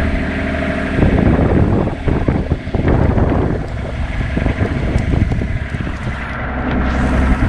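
Old camper van's engine running, overlaid from about a second in by a rough gusting rumble of wind on the microphone; the engine's steady hum comes through clearly again near the end.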